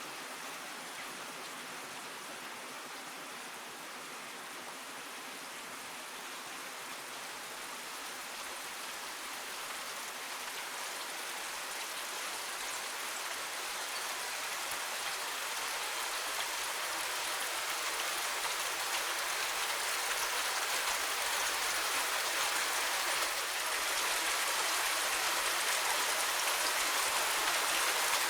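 Steady rain falling, a dense even patter that grows gradually louder through the stretch.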